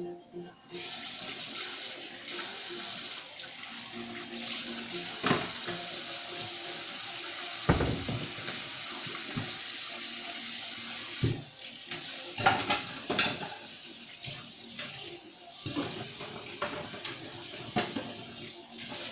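Kitchen tap running into a stainless steel sink during hand dishwashing. The water comes on about a second in and runs steadily, with scattered clinks and knocks of dishes and a glass bottle being rinsed.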